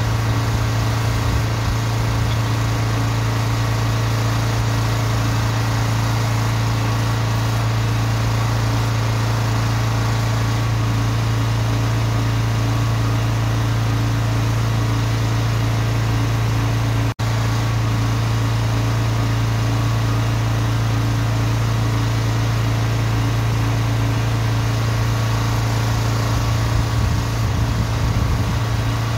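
Van-mounted drain jetter's engine running steadily, a constant low hum.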